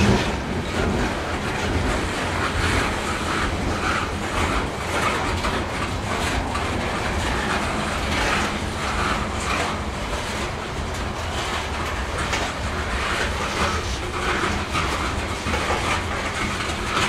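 Coal cars of a freight train rolling steadily past at close range: a continuous rumble of steel wheels on rail, with repeated clickety-clack clicks from the wheels.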